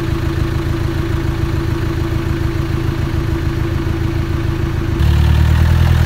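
Land Rover Discovery's engine running steadily with a constant hum, heard from inside the vehicle; about five seconds in it turns louder and deeper.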